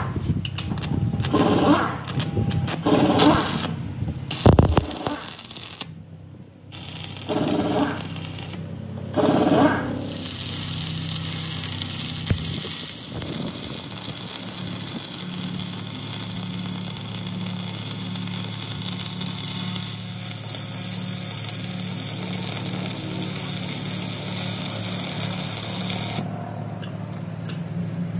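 Stick (arc) welding a steel nut onto a steel plate: a steady crackle and hiss of the arc over the low hum of the welding transformer, starting about a third of the way in. Before it come several short, loud, irregular noises.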